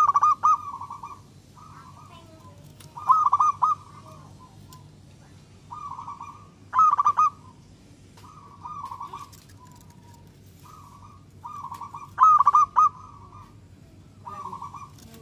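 Zebra dove (perkutut) cooing in a cage: repeated phrases of quick, rolling coo notes. Four loud phrases come every few seconds, with softer phrases between them.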